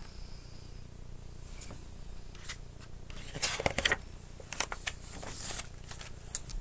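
A picture book's paper page being handled and turned: brief rustles and crinkles in the second half, over a low steady hum.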